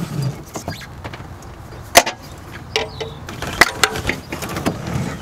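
Scattered sharp clicks and knocks of hands and hand tools working among parts in an engine bay, the loudest about two seconds in.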